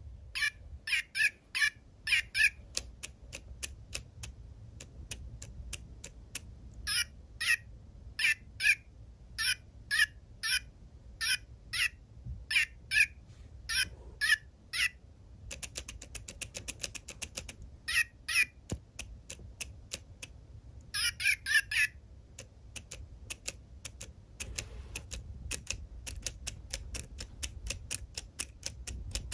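Tomy Micro Pets robot cat chirping in short, high electronic beeps that come in runs of several with pauses between, over a steady patter of quick dry clicks as it moves.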